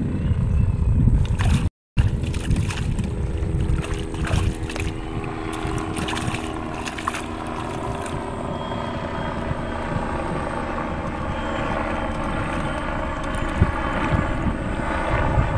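Wind rumbling on the microphone, with a faint distant engine hum whose pitch dips and then rises again in the second half.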